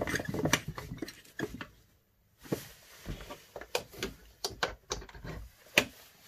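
A glass incandescent bulb's screw base scraping and clicking as it is turned into a plastic lamp socket. After a short pause comes a run of sharp handling clicks, with the sharpest click near the end as the bulb is switched on.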